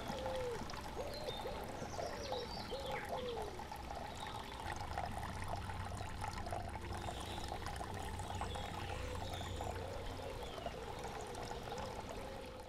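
Water falling and trickling steadily from tier to tier of a three-tier ceramic cascade fountain.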